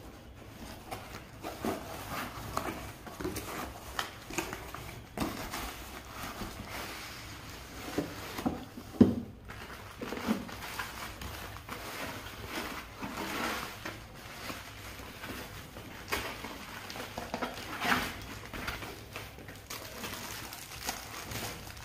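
Packaging being handled and unpacked: a taped cardboard parcel opened, then a foam sheet and plastic wrap rustling and crinkling, with irregular scrapes and taps. A sharper knock comes about nine seconds in.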